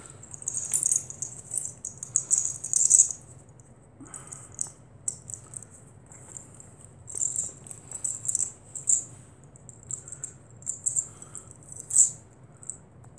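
Metal buckles and rings on a leather dog harness clinking and rattling in irregular bursts as the straps are handled and refitted.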